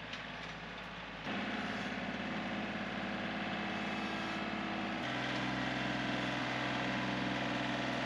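A heavy machine's engine running steadily. It grows louder about a second in and shifts to a different steady pitch around five seconds in.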